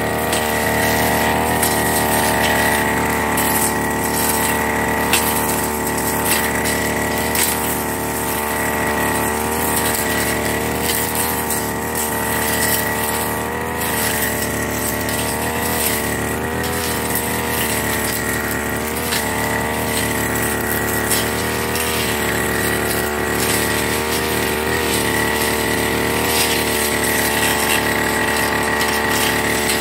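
Firman FGB389 backpack brush cutter running at cutting speed, its pitch wavering slightly, with a steady high whine.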